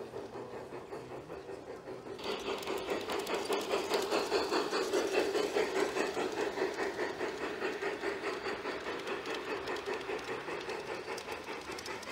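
G scale model steam locomotive and its freight cars running along the garden track with a fast, rhythmic clatter, louder from about two seconds in as the train comes close.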